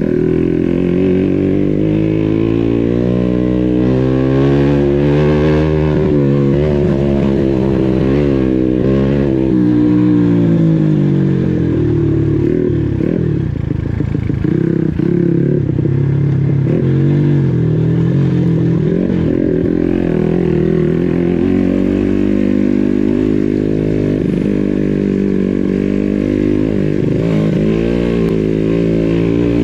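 Motorcycle engine revving under load, its pitch rising and falling again and again as the throttle is worked. About midway it turns to a choppy run of short throttle blips.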